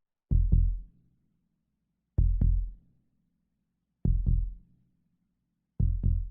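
Scary heartbeat sound effect: slow, deep double thumps in a lub-dub pattern, four of them about two seconds apart.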